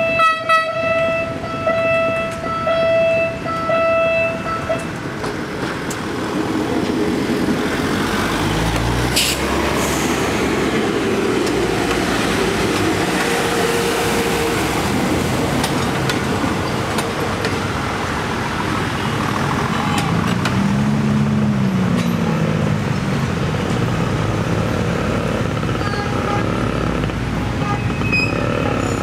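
A warning tone pulses in short regular beeps for about five seconds. Then a Philippine National Railways diesel multiple-unit train rumbles and clatters past at close range, its wheels on the rails, with a sharp bang about nine seconds in.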